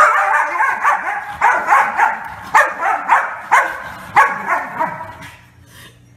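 A dog barking and yipping in a fast, unbroken run of high calls that starts abruptly and fades out about five seconds in.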